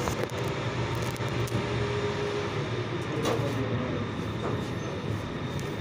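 Steady low hum and background noise of a car service garage, with a sharp click a little after three seconds in.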